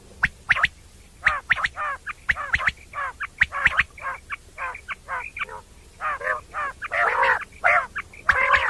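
Common quail calling: a rapid series of short calls, several a second, in uneven clusters.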